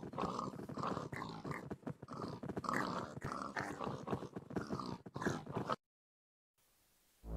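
Pigs grunting and oinking in a fast, continuous run of short calls, cutting off abruptly about six seconds in.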